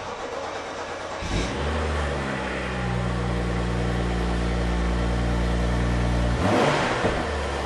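BMW 640i's turbocharged straight-six cranked on the starter and catching after about a second and a half, with a flare of revs that drops back to a steady idle. A short blip of revs comes about six and a half seconds in. This is the first start after the high-pressure fuel pump was replaced.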